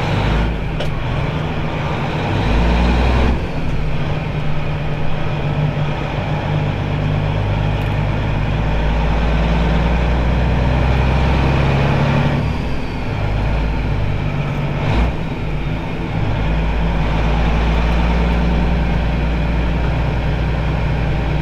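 Straight-piped Caterpillar 3406 inline-six diesel of a Kenworth W900, heard inside the cab as the truck pulls away. The engine note breaks and changes pitch about 3, 12 and 15 seconds in as the gears are shifted.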